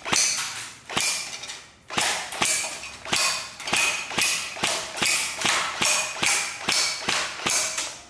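Airsoft Steyr AUG replica firing a quick run of single shots, each a sharp snap, about three a second.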